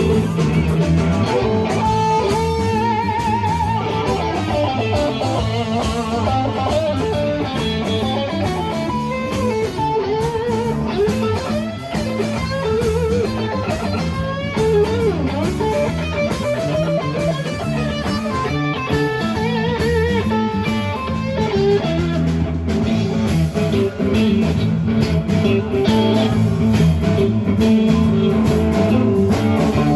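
Live blues band playing an instrumental passage: electric guitar lead with bent, wavering notes over a second guitar, bass and drums.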